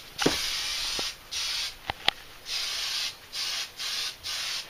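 Aerosol spray-paint can hissing in a string of short bursts, each about half a second to a second long, as the painter sprays on and off while coating a case. There are two sharp clicks about two seconds in.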